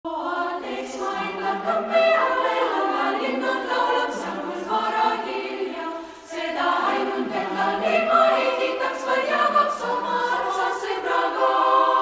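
Background music of a choir singing, several voices holding long chords, with a short dip about six seconds in.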